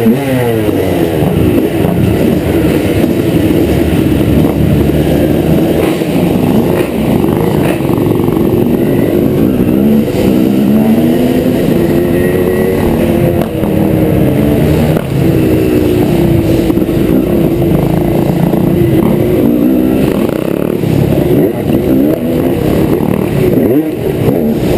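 2003 Honda CR250R's liquid-cooled single-cylinder two-stroke engine being ridden hard, revving up and dropping back over and over as the throttle is opened and shut.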